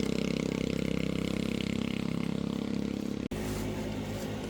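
A small engine running steadily. About three seconds in, the sound cuts abruptly to a different, quieter engine.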